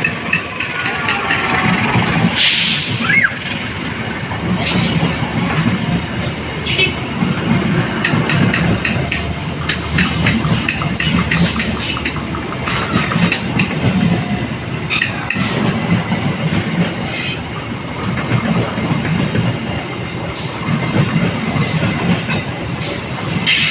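A train running on the tracks, its wheels clattering over the rails, with sharp clicks now and then.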